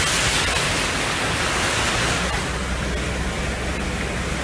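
Steady, loud rush of water, an even hiss with no distinct events: floodwater or heavy rain.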